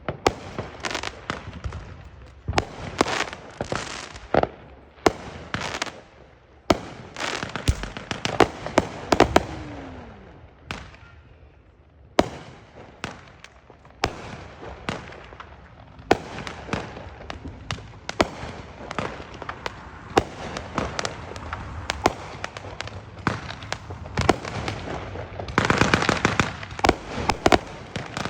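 Fireworks going off in quick succession: many sharp bangs and pops, some overlapping, with a dense stretch of rapid crackling near the end.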